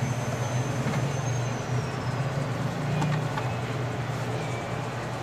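Hot air rework station blowing steadily, a rush of air over a low hum, heating the tablet's board to desolder two small capacitors.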